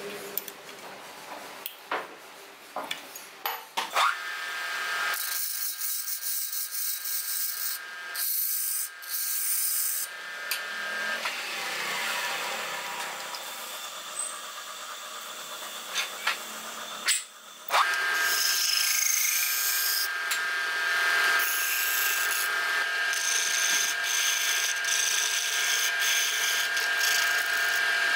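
Wood lathe running with a steady machine whine and hiss, the wood spinning on it under a hand and a turning tool. The first few seconds hold only scattered taps and clicks. The lathe stops briefly about two-thirds through, then runs louder with the tool cutting the wood.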